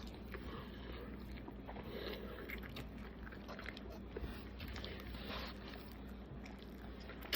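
Faint chewing and mouth sounds from eating a sub sandwich, with scattered soft clicks over a low steady hum.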